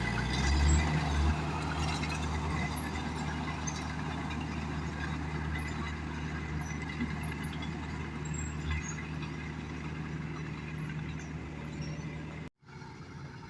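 Heavy diesel engine of earthmoving equipment running steadily, a little louder in the first second. The sound cuts off abruptly near the end and a quieter engine noise follows.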